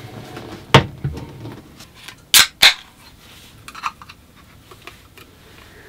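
Sharp knocks and clicks of objects being handled: one knock about a second in, then two loud clacks in quick succession a little later, and a few lighter ticks after them.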